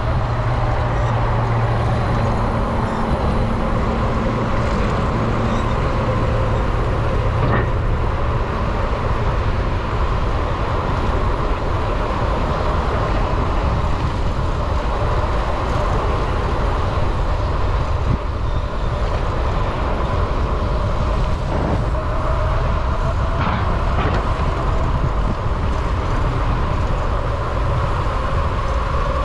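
Steady rolling road noise and wind rush from riding a small electric vehicle along the street, with a faint whine that drifts slightly in pitch. A low hum sits under it for the first several seconds.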